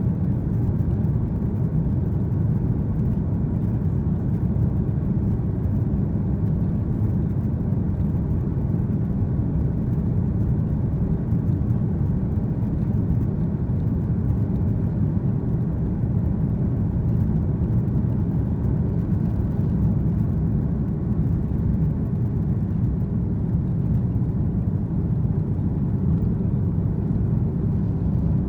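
Airbus A330-300 jet engines at takeoff thrust with runway rumble, heard from inside the cabin over the wing during the takeoff roll: a steady, deep rumble at even loudness.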